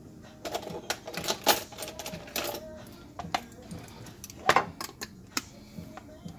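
Clicks and metal clatter of a can of chunk chicken being handled and a handheld can opener being fitted onto its rim: a quick run of sharp clicks in the first couple of seconds, then a louder clack about four and a half seconds in.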